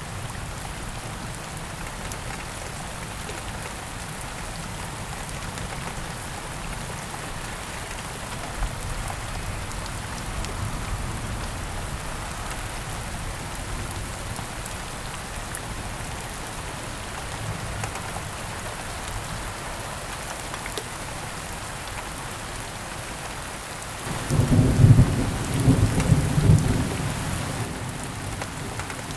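Steady heavy rain in a rainforest with low rolling thunder; a louder thunder rumble breaks about 24 seconds in and rolls on for some four seconds before fading back under the rain.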